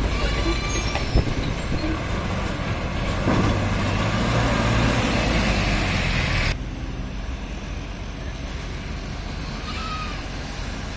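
Heavy diesel trucks and a bus running close by, with a loud low engine hum from about three and a half seconds in. About six and a half seconds in, the sound drops abruptly to quieter, steady traffic noise from a truck further off.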